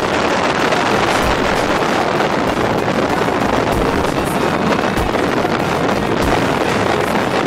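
Steady rush of wind buffeting the microphone, with water and motor noise from a center-console boat running across open water.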